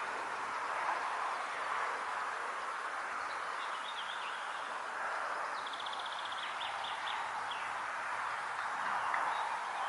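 Outdoor pond-side ambience: a steady, even rushing noise with faint birds chirping, including a short rapid trill about six seconds in.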